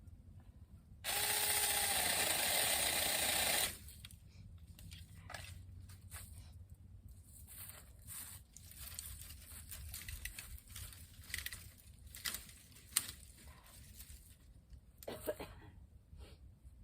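A Saker mini battery-powered electric chainsaw with a 4-inch bar runs for about three seconds, starting about a second in, a steady whine over the chain's buzz, then stops. Scattered light clicks and crackles follow.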